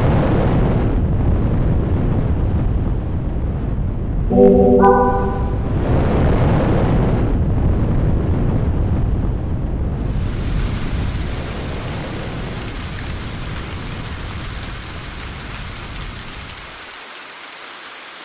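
Cartoon sound effect of a train on fire: a loud, steady rushing roar of flames and rumble. About four and a half seconds in, a brief horn-like tone steps up in pitch. From about ten seconds the roar thins to a hiss that slowly fades away.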